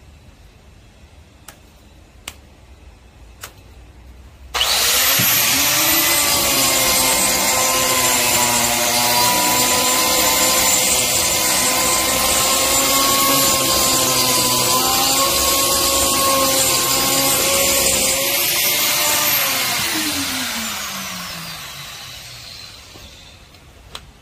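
A 4-inch angle grinder with a dust-extraction shroud switches on about four seconds in. It spins up at once and grinds the surface of a cement block, its whine wavering slightly with the load. Near the end it is switched off and its pitch falls as it winds down over several seconds, with a few light clicks before it starts and one click after.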